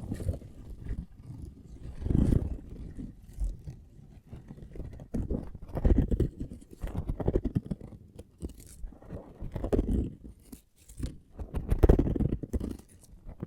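Fingertips scratching and tapping right at a microphone, in swells of quick, dense strokes every couple of seconds, the loudest near the end.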